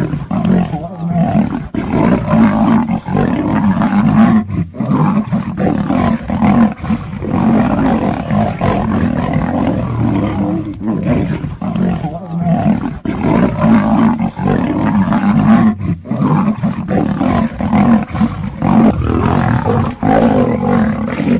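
Big cats, a lion and a tiger, roaring as they fight, almost without pause, broken only by a few short gaps.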